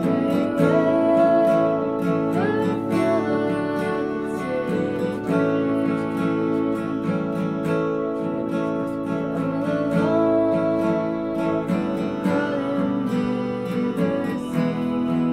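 Live acoustic guitar strumming together with keyboard chords, with a woman's voice singing over them.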